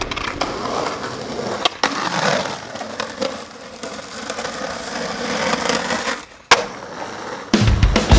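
Skateboard wheels rolling on rough asphalt and the board scraping along a concrete ledge, with several sharp clacks of the board hitting the ground, the loudest about six and a half seconds in. Music starts near the end.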